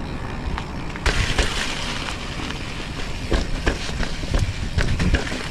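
Trek Fuel EX 7 mountain bike rolling over a sandy dirt trail, heard from an action camera on the ride: a steady rush of tyre and wind noise with scattered knocks and rattles from bumps and the bike's parts. It gets louder about a second in.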